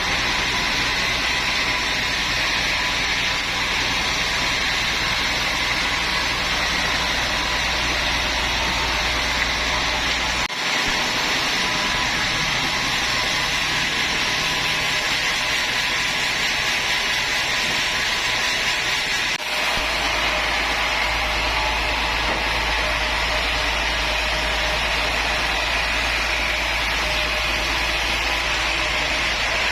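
Woodworking power machinery running steadily with a loud, even whine and hiss over a low hum, broken briefly twice, about a third and two thirds of the way in.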